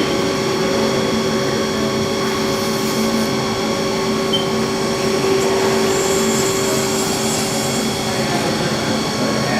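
CNC lathe spindle running steadily at speed, with no cutting yet: an even machine hum made of several constant tones.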